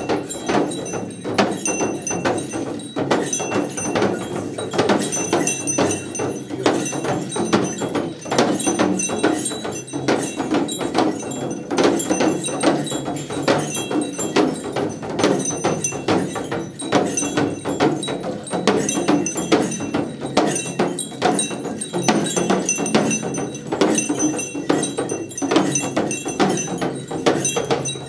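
Nepali shamans' dhyangro frame drums beaten in a fast, continuous rhythm with curved sticks, while the brass bells on their crossbelts jangle as they dance.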